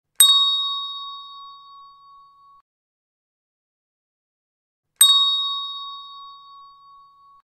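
A bell-like metallic chime struck twice, about five seconds apart, each strike a clear ringing tone with bright high overtones that fades over about two seconds. The first ring cuts off abruptly.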